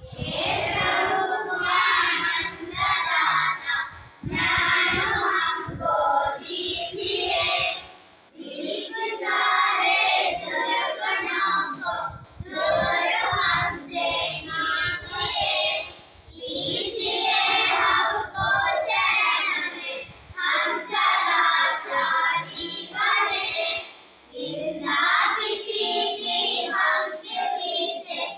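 A class of schoolchildren singing a Hindi poem together in unison, in phrases of about four seconds with a short breath between each.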